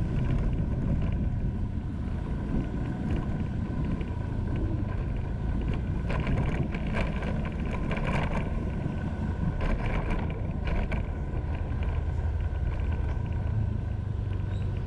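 Motorbike running along at a steady road speed, its engine rumble mixed with wind on the microphone.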